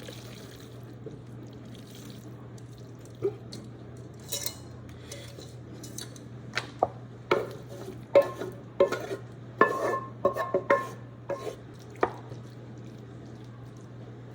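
A serving utensil clinking and scraping against cookware while creamy macaroni and cheese is scooped into a baking pan: a run of sharp clinks and knocks, some ringing briefly, starting about three seconds in and stopping shortly before the end.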